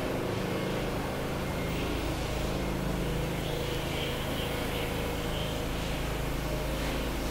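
Steady city street background: a constant low rumble and hum of traffic and engines, with no sudden events.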